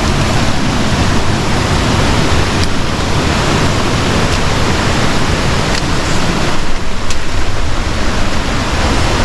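Loud, steady rush of running water, with a few faint ticks over it.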